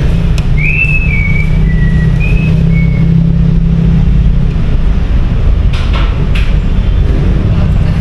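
An 8 mm T-wrench loosening the front brake caliper bolts on a scooter, with a few short high squeaks in the first three seconds and a couple of metallic clicks about six seconds in. Under it runs a steady, loud low rumble.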